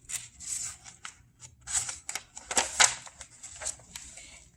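Picture-book pages being handled and turned: paper rustling with several short clicks and scrapes, loudest about two to three seconds in.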